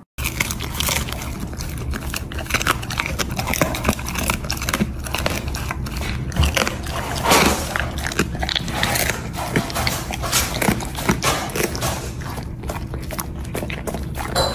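Golden retriever chewing a crumbly dry snack, with many rapid crunches and mouth clicks.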